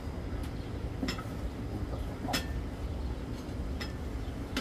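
Kitchen knife slicing grilled beef, its edge knocking down onto a cutting board in about five short, sharp clicks spread across a few seconds, over a steady low rumble.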